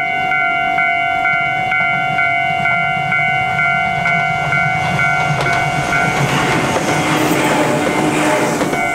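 Tobu 10000-series electric train approaching and passing close by: its rumble grows from about two seconds in, and wheel and rail noise is loudest in the last few seconds before cutting off abruptly. Under it, a steady metallic chime pulses about twice a second.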